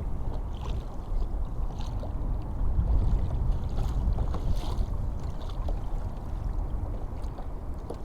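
Steady wind rumble on the microphone with water washing along a kayak hull while it moves slowly.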